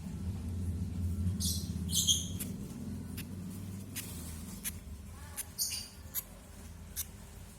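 Two-day-old lovebird chicks giving about three short, high begging squeaks while being hand-fed, with several sharp clicks in between and a low hum underneath.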